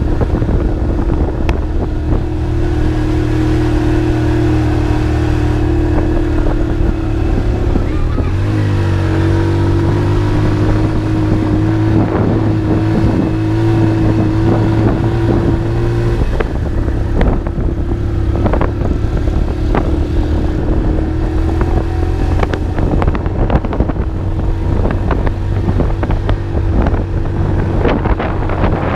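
Motorcycle engine running steadily while riding, heard from the pillion seat, with scattered knocks from the ride. The engine pitch dips briefly about eight seconds in, then holds steady again.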